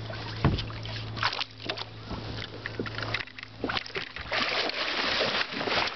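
Splashing and sloshing water as a landing net is plunged in around a hooked lingcod at the side of a boat, growing loud from about four seconds in, with a few knocks of the net frame. A steady low hum underneath stops about three seconds in.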